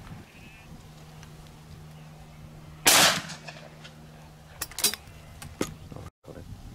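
A single close shotgun shot about three seconds in, with a short ringing tail, followed by a few sharp clicks.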